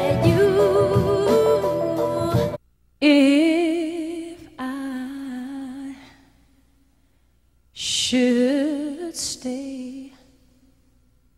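A boy's voice sings a pop ballad over a band, cut off abruptly about two and a half seconds in. After a brief silence a woman's voice sings a cappella with wide vibrato, in two phrases separated by a pause.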